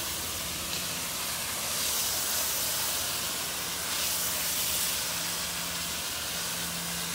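Pressure washer jet hissing as it sprays water into air-conditioner coils, the spray swelling louder a few times as the wand moves, over a steady low hum.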